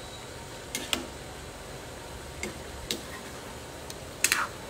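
A few light, irregular clicks and taps of utensils on a cooking pot or bowl, with the two loudest close together near the end.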